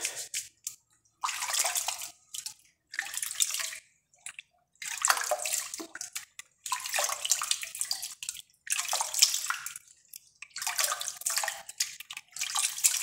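A hand swishing and scooping soapy water in a basin, about seven splashing strokes with short pauses between them.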